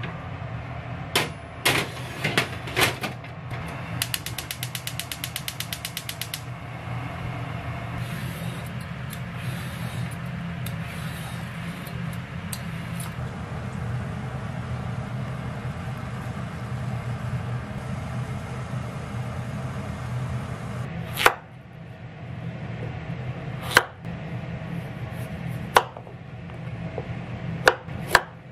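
A few clicks, then a gas hob's igniter ticking rapidly, about ten ticks a second for about two seconds, as the burner is lit. A steady hiss over a low hum follows while the burner heats a pot of water. In the last quarter a kitchen knife chops a peeled carrot on a cutting board, single sharp strokes a couple of seconds apart.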